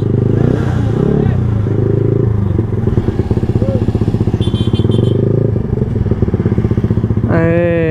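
Yamaha R15M's single-cylinder engine running under way, its exhaust pulsing steadily with small changes in speed. A brief pitched tone cuts in near the end.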